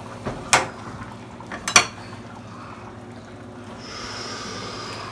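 A metal spoon knocks twice against a large aluminum pot, then stirs through a simmering stew with a steady liquid swishing.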